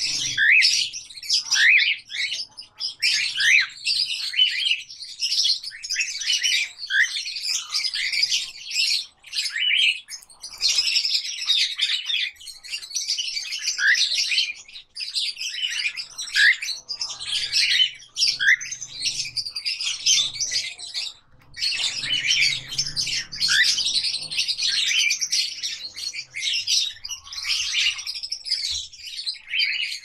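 Parrots chirping and calling in a dense, nearly continuous chatter of short, rising high chirps, with brief lulls about ten and twenty-one seconds in.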